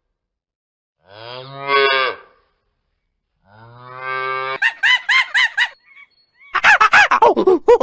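A cow moos twice in long, low calls, about a second in and again about three and a half seconds in. From about four and a half seconds a monkey gives quick strings of short, high calls that rise and fall, several a second.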